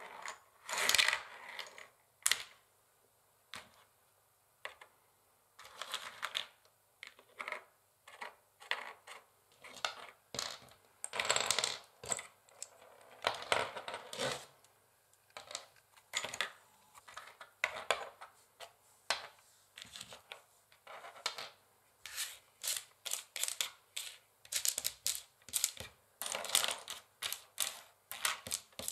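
Long fingernails tapping and scratching on a wooden chessboard: scattered clicks and a few short scrapes, turning into fast runs of tapping near the end.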